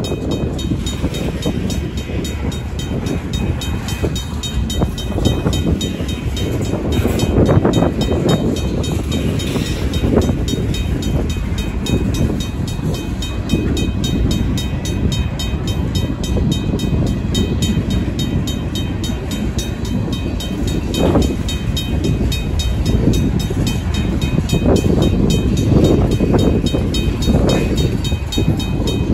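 Freight cars, covered hoppers and tank cars, rolling past close by, their wheels rumbling and clattering steadily over the rails. Over it, a RACO mechanical crossing bell rings with even, rapid strokes.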